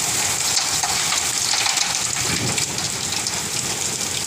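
Heavy rain mixed with hail pouring down, a steady dense hiss.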